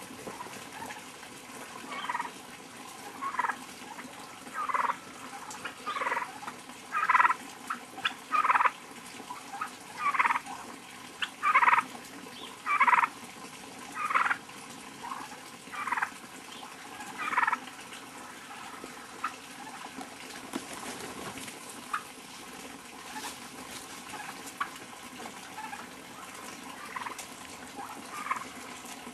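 Heritage turkeys calling: a run of about a dozen short calls, roughly one every second and a bit, then only a few scattered, fainter calls.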